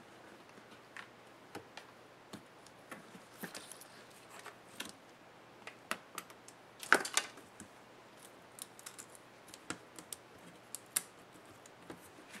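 Irregular small clicks, taps and rustles of plastic and thin wire as a Lenovo ThinkPad E550's display back cover is handled and its antenna and webcam cables are pulled free, with a louder clatter about seven seconds in.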